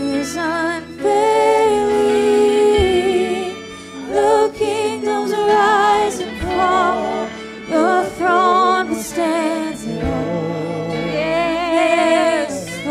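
Live church worship band: male and female voices singing a slow praise song into microphones, long held notes with vibrato, over band accompaniment.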